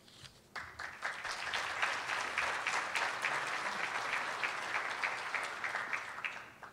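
Conference audience applauding: many hands clapping together, starting about half a second in and dying away near the end.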